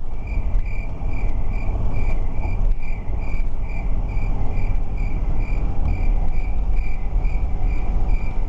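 Motorhome driving along, a steady low road and engine rumble, with a regular high-pitched chirp repeating about twice a second over it.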